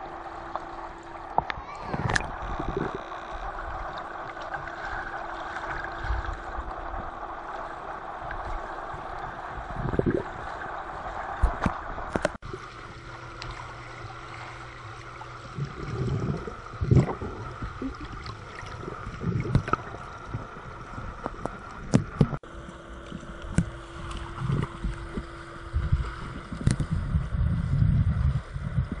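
Swimming-pool water heard from underwater: a muffled steady wash with a faint hum that comes and goes, broken by irregular dull thumps and sloshes from children kicking and swimming past, more of them in the second half.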